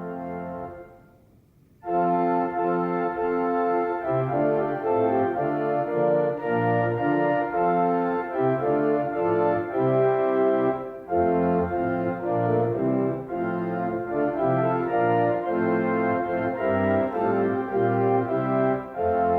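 Church organ playing. A held chord dies away about a second in, and after a brief pause the organ starts again with a passage of changing chords, with a short break about eleven seconds in.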